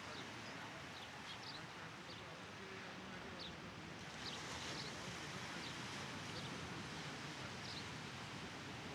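Quiet coastal outdoor ambience: a steady wash of background noise with scattered faint, short, high bird chirps.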